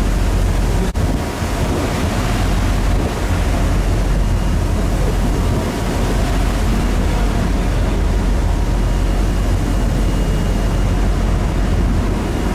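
Wind buffeting the microphone aboard a ferry under way at sea, over the rush of the sea and a low, steady rumble from the ship, with a brief lull about a second in.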